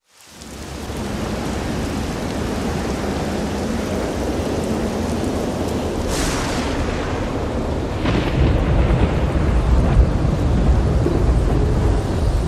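Thunderstorm sound effect: steady rain hiss fading in, a thunderclap about six seconds in and another about eight seconds in, followed by heavier low rumbling.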